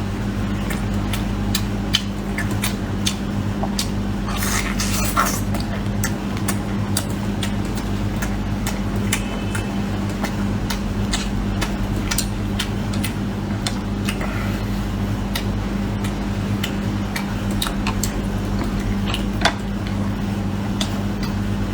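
Close-up eating sounds of someone chewing and gnawing braised beef ribs: many short, sharp clicks and crackles scattered throughout, over a steady low hum.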